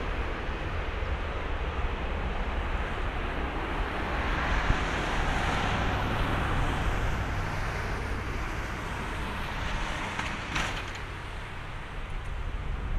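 Airbus A330-300's Rolls-Royce Trent 700 turbofans at takeoff thrust during the takeoff roll: a steady jet noise that swells about four to seven seconds in and then eases as the aircraft moves away down the runway.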